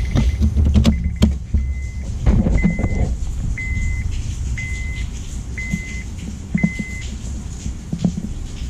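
2003 Honda Civic's dashboard chime beeping evenly about once a second, stopping near the end, after a couple of sharp clicks near the start as the ignition key is turned. The key is being turned while the reset button is held, to clear the oil-change maintenance light.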